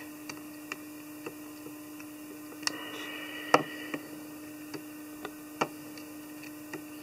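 Scattered light clicks and taps from hands and metal hackle pliers working at a fly-tying vise while a hackle is wound onto a tube fly, with two sharper taps around the middle, over a steady low hum.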